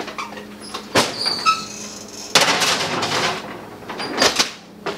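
Wall oven door pulled open with a knock about a second in, then a stretch of metal scraping and clatter as a game console is put in on the oven rack, and more knocks near the end as the door is shut.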